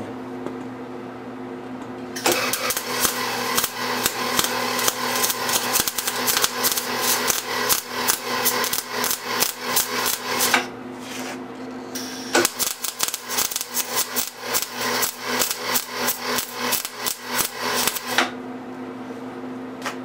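MIG welder arc crackling and sizzling as a nut is welded onto a steel plate ground clear of its zinc coating. There are two runs, about eight seconds and then about six, with a short pause between.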